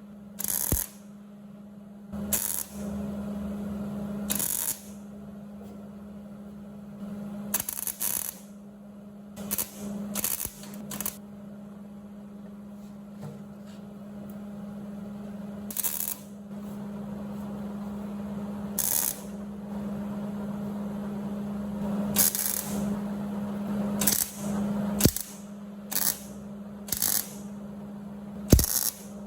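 MIG welder laying short tack and stitch welds on sheet-steel patch panels: about fifteen brief bursts of crackling arc, each under a second, spaced a second or more apart, over a steady hum.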